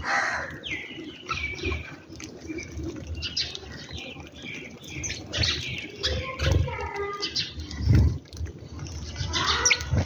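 House sparrows chirping repeatedly in short, high notes, with several low flutters of wings as birds land and take off close by.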